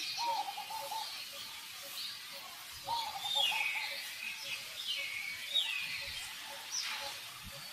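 Animal calls: a series of high chirps that sweep downward, with two longer, lower wavering calls about a second long near the start and about three seconds in.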